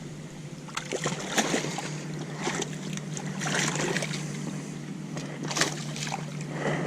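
A hooked largemouth bass being fought and landed: irregular short splashes and clicks over a steady low hum.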